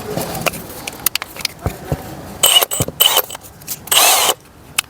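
Handling sounds of a sanding disc being fitted onto a sander's pad: scattered clicks and rustling, then two short loud bursts of noise, about halfway through and near the end.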